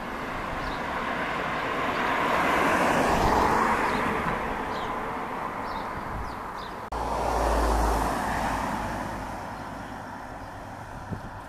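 Road traffic: a car passes, its noise swelling and fading away about three seconds in. After a sudden break, a second car passes about eight seconds in and fades off down the road.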